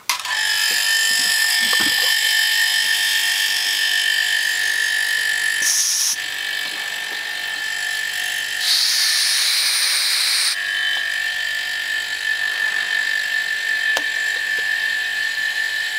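Refrigerator compressors, repurposed as an air compressor, start up and run with a steady high-pitched whine while pumping air into a small tank. There is a brief hiss about six seconds in and a louder hiss lasting about two seconds near the middle.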